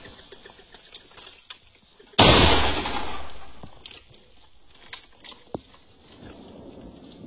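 A single shotgun shot about two seconds in, its report dying away over about a second and a half. A faint sharp tick follows a few seconds later.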